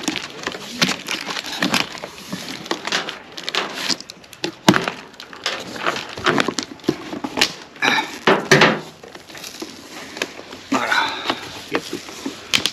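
Cardboard shipping box being opened: its plastic packing straps cut and the flaps pulled apart, giving a run of sharp cracks, scrapes and creaks of cardboard, with a few squeaks.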